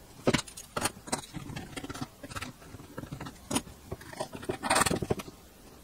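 Hands handling a plastic ammo-can lid and pressing on the Anderson Powerpole connector fitted in it: a few sharp plastic clicks and knocks, and a longer rubbing scrape near the end.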